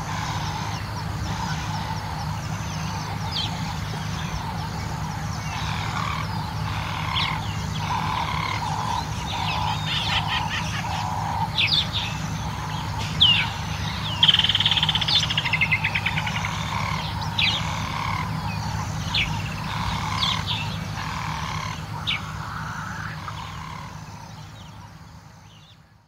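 A dawn chorus of many bird species in African bushveld: chirps, sharp rising whistles and a fast trill over a string of low repeated calls, with a steady low hum underneath. It fades out near the end.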